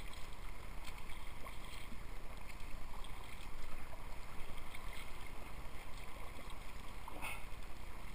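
Sea kayak being paddled: the paddle blades dip and splash while water laps against the hull, over a steady low rumble. A slightly sharper splash comes about seven seconds in.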